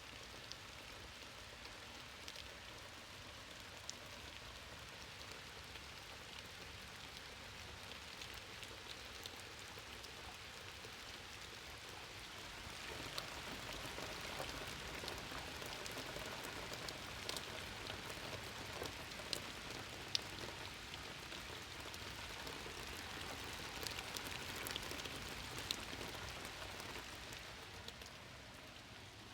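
Steady rain falling, with scattered sharp drop hits. It grows heavier a little before halfway through.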